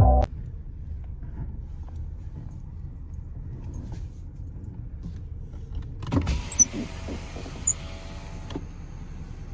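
Car interior with a steady low rumble. About six seconds in, a power window motor runs for about two and a half seconds, with a hiss and a few light clicks.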